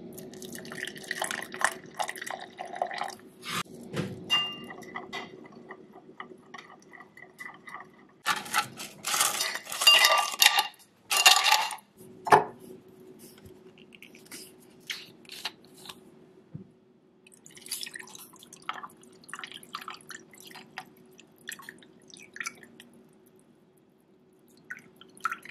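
A metal spoon clinking and scraping as it stirs butterfly pea powder in a double-walled glass, each tap ringing briefly. Ice cubes then clatter into the glass in two loud bursts, followed by softer clicks and trickles as more liquid is poured over the ice. A steady low hum runs underneath.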